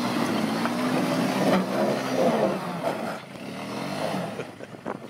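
Small quad bike's engine revving under load as it is ridden through mud and up a bank, its note wavering up and down and easing off about three seconds in.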